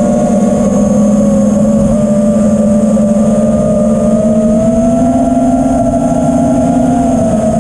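Dingo 6 FPV quadcopter's motors and propellers humming steadily in flight, the pitch rising a little about five seconds in and easing back down near the end as the throttle changes.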